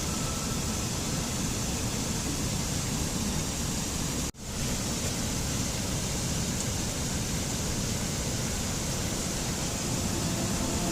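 Rushing water from a waterfall or stream, a steady even rush, broken by a brief dropout about four seconds in where two recordings are spliced.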